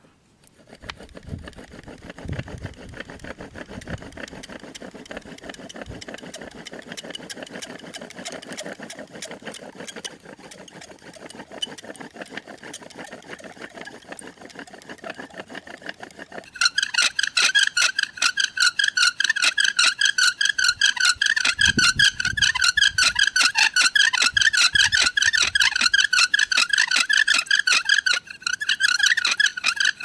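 Bow drill being worked: the wooden spindle rasps against the fireboard with each back-and-forth stroke of the bow. About halfway through, the sound turns into a loud high squeal that wavers with every stroke.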